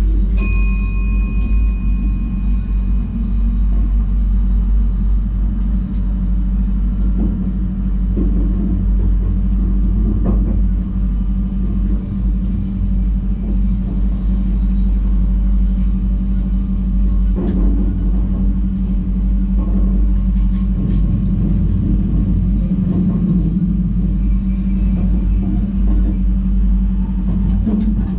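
Inside the cab of a VIRM double-deck electric intercity train running at speed: a steady low rumble and hum of wheels on rail and traction equipment. Just after the start, a ringing chime of several tones dies away over about two seconds. Light clicks are scattered through the second half.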